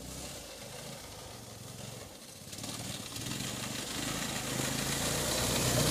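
Polaris 120 youth snowmobile engine running, growing steadily louder from about halfway through as the sled comes closer through deep powder snow.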